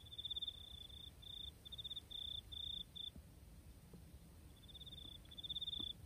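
Insect chirping: short, rapidly pulsed high-pitched trills in quick succession, pausing about three seconds in and starting again near the end.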